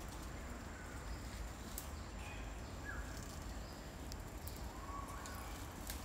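Forest ambience: scattered short, faint bird chirps over a low rumble, with a thin steady high tone and a few light clicks.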